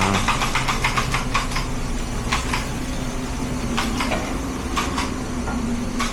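Restaurant background noise: irregular clinking and clattering over a steady low hum.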